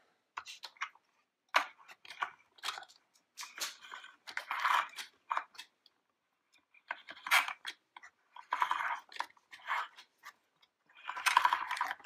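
Plastic Play-Doh Diggin' Rigs molding machine being worked by hand: dough pressed into the hopper and cranked through the ridged roller, giving irregular spells of clicking plastic and squishing, crunching clay, each a second or two long with short gaps between.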